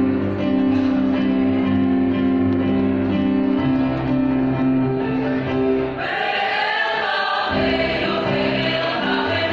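A choir singing with guitar accompaniment, the voices holding chords at first and then rising into a louder, wavering passage about six seconds in.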